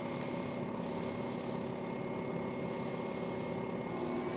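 Yeedi Vac robot vacuum running with a steady hum of several even tones, its suction fan not yet switched on.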